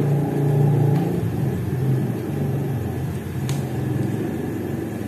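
Steady low engine-like hum that swells and eases slightly.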